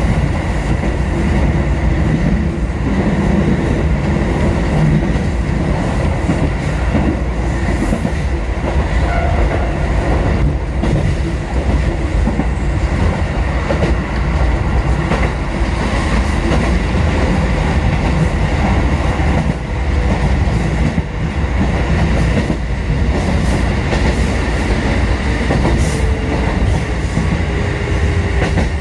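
Kotoden four-car electric train (1080 and 1100 series) running along the Kotohira Line, heard from inside the leading car: a steady rumble with irregular clicks of the wheels over rail joints. A faint whine slowly falls in pitch over the last ten seconds or so.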